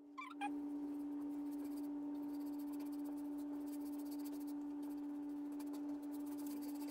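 Paintbrush stroking paint onto a wooden box, a faint scratchy brushing, over a steady hum.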